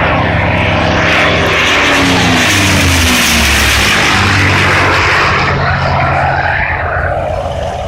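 P-51D Mustang's Packard Merlin V-12 engine during a loud fly-past: the engine note peaks about three seconds in and drops in pitch as the fighter goes by, then eases off somewhat near the end.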